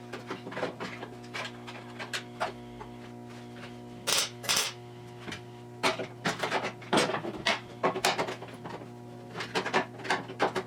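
Short, irregular bursts of welding crackle as an overlapping steel patch is tacked onto a car frame, over steady background music.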